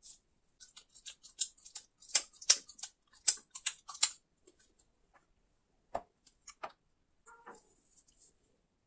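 Close-miked chewing of a piece of Kinder Maxi milk chocolate bar with milk filling: a quick run of crisp, wet mouth clicks for about four seconds, then a few softer clicks and a single knock about six seconds in.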